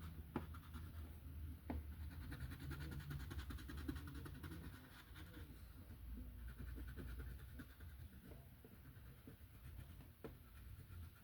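Faint scratching of a colouring tool rubbed back and forth on paper while an area is filled in with pink. A low steady hum runs under it, with a few light clicks.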